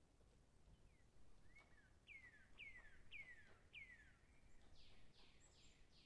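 A bird calling faintly: four clear notes, each sliding down in pitch, about two a second, then a few harsher, higher notes near the end.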